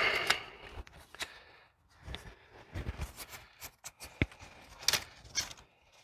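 Scattered light clicks and short rattles from a mechanical disc brake caliper being handled and its pad-adjuster screw turned, with a busier stretch of handling noise at the very start.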